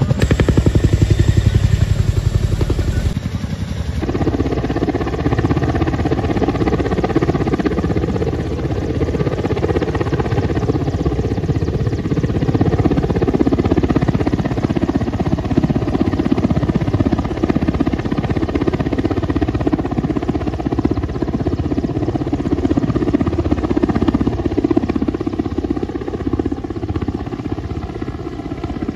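Military helicopter rotors and turbines running loudly and steadily, with a rapid chop. The sound comes first from a tandem-rotor Chinook, then, after a sudden change about three to four seconds in, from an Mi-17 hovering low.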